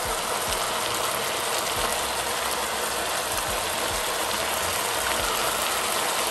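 Vegetable and bean ragout sizzling and bubbling in a hot frying pan as its wine, soy and balsamic liquid cooks down: a steady hiss. A few soft taps and rattles come from a plastic tub of barbecue spice being shaken over the pan.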